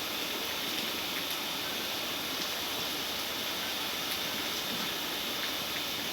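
Steady hiss of background noise with a few faint, light clicks scattered through it.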